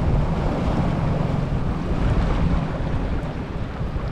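Small boat under way: a steady rumble of wind on the microphone over the running motor and water along the hull.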